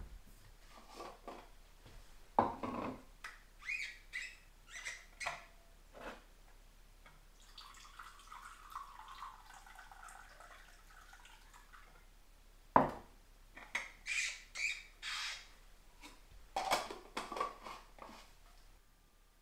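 Vacuum flask's screw cap squeaking and clicking as it is twisted open, then a steady pour of coffee from the flask into a mug lasting about three seconds. A single sharp knock on the table follows, then more squeaks and clicks as the cap is screwed back on.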